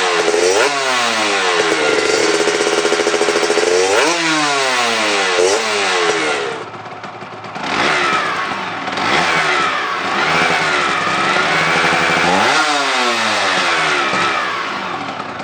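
Aprilia RS 125 two-stroke single-cylinder engine, fitted with an aftermarket Giannelli exhaust, being revved in repeated blips. The pitch climbs and falls back every second or two, and the engine drops briefly to a quieter idle about midway.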